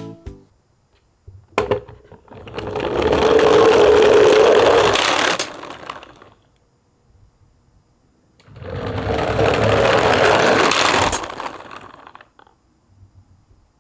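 Plastic wheels of a toy garbage truck rolling over a wooden floor in two runs of about four seconds each, with a steady whirr under the rolling noise. A short click comes just before the first run.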